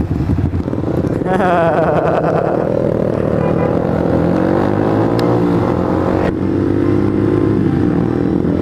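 Yamaha YZF R15 single-cylinder motorcycle engine pulling away from a stop: the level jumps and the pitch climbs about a second in, then rises and dips through gear changes as the bike rides on.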